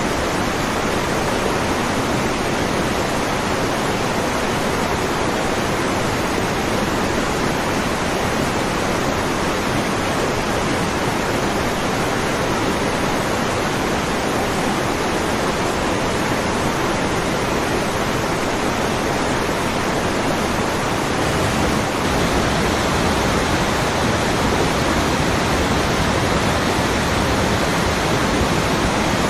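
Waterfall rushing steadily, an even roar of falling water. About three-quarters of the way through it becomes slightly louder and deeper.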